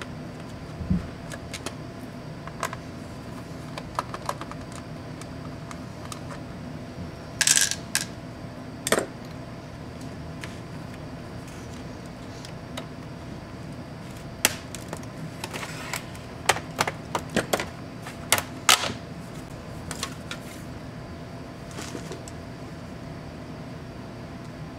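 Plastic bottom cover of an MSI GE76 Raider laptop being pried off with a knife blade: scattered sharp clicks and snaps as its clips let go, busiest in the second half, over a steady low hum.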